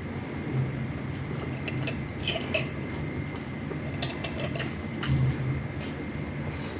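Eating at a table: a few light clicks and taps of tableware against a plate, over a faint steady low hum.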